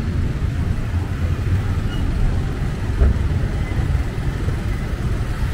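Street traffic heard from a vehicle driving through city traffic: a steady low engine and road rumble, with one brief thump about three seconds in.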